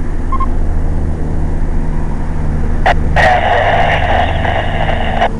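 Mobile two-way ham radio receiving a garbled, static-filled transmission: a click as the signal comes up about three seconds in, then about two seconds of hissy noise with no clear words, cut off by another click. The radio has been having trouble carrying this station's report. A steady low hum sits underneath, with a short beep tone near the start.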